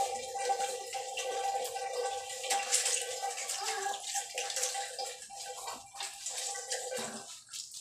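Water running from a shower tap and splashing in a tiled shower stall, with a steady whistling whine in the flow that stops about seven seconds in.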